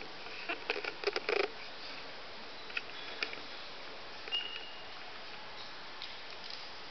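A quick cluster of clicks and rustles about a second in, a couple of single clicks later and a short high squeak, over a steady hiss: handling noise.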